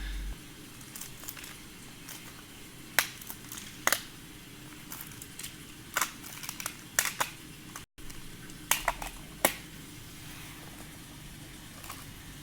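Plastic Magna-Tiles magnetic building tiles clicking and clacking as a child handles them and snaps them together into a cube, with sharp single clicks and quick pairs scattered through.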